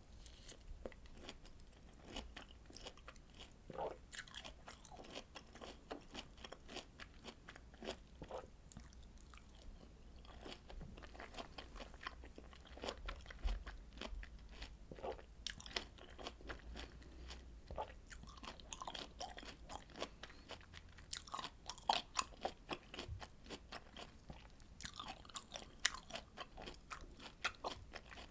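Person chewing citrus fruit: a dense run of short mouth clicks and smacks, busiest in the last third.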